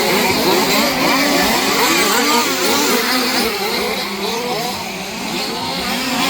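Several 1/5-scale petrol RC race cars' small two-stroke engines revving up and down together, their pitches overlapping constantly, briefly a little quieter about five seconds in.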